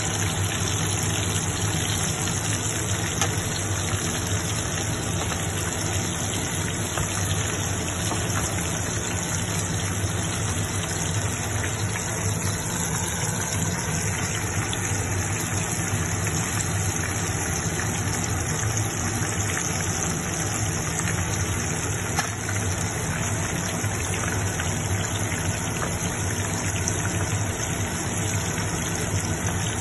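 Breaded pork cutlet frying in a pan of bubbling oil: a steady crackling sizzle over a constant low hum.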